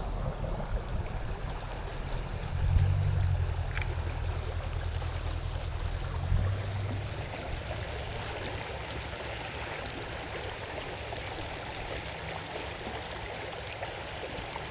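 Creek water running steadily, with a low rumble underneath that stops about six seconds in.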